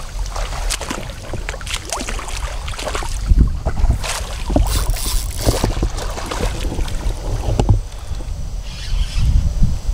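Water sloshing and splashing around legs wading through a shallow river, with irregular splashes and knocks throughout, over a low rumble of wind on the microphone.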